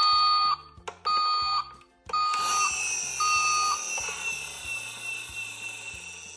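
Toy ambulance's battery-powered electronic siren: four short beeps in a steady rhythm, then a long high electronic wail that slowly falls in pitch and fades.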